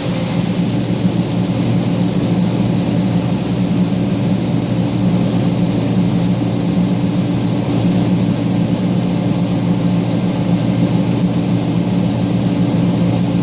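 John Deere 9550 combine running steadily while unloading corn through its unloading auger, a constant engine hum with a steady high hiss on top.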